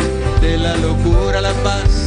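Live band music: an acoustic guitar with bass over a steady beat, and a melody line gliding above.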